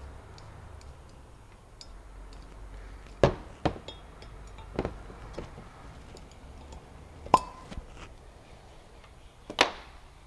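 A bottle of red wine being opened with a corkscrew: several sharp clicks and clinks of the metal corkscrew against the glass bottle, spaced irregularly, with one of the loudest near the end.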